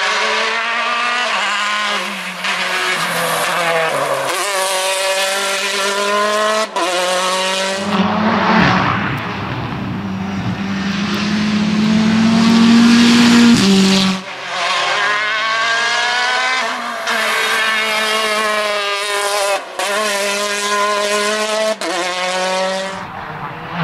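Rally cars at full throttle on a tarmac stage, engines revving hard and climbing in pitch through the gears, with short breaks at each gear change. From about a third of the way in, a lower, rougher engine note rises slowly to the loudest point before the high revving resumes.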